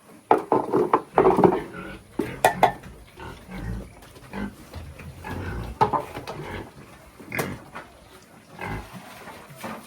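Pigs grunting in uneven bursts, loudest in the first second or two, with a few sharp knocks or clatters in between.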